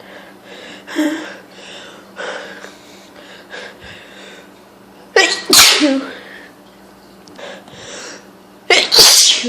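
A woman sneezing loudly twice, once about halfway through and once near the end, each sneeze led in by several catching, gasping breaths: allergic sneezing from hay fever.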